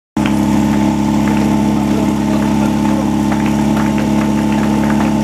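A portable fire pump's engine idling steadily, close by, with faint short ticks over it.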